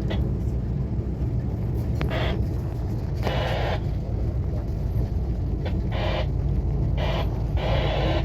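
A vehicle's engine running with a steady low rumble, with several short bursts of hiss over it.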